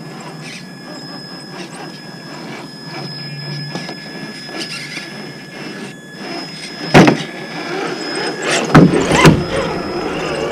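Traxxas TRX-4 Defender RC crawler's electric motor and gears whining steadily, high-pitched, as it climbs over sand. A loud knock comes about seven seconds in and a few more near the end as the truck bumps over the terrain close by.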